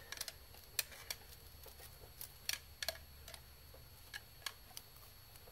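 Faint, irregular metallic clicks and taps of a screwdriver being levered against a fuel rail to pry it loose from its injectors.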